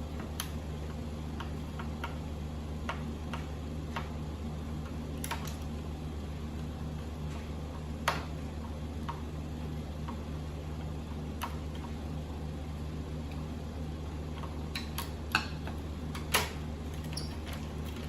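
Scattered small clicks and taps of a screwdriver and plastic and metal parts being handled while a VCR is taken apart, a few louder knocks near the end, over a steady low hum.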